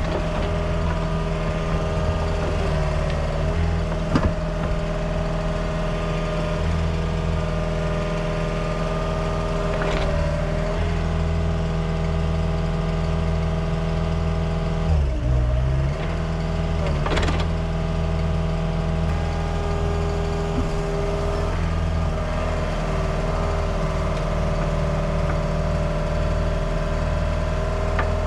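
Heavy-equipment engine running steadily under light load, with a brief dip and change in engine speed about halfway through and a few short knocks or clanks.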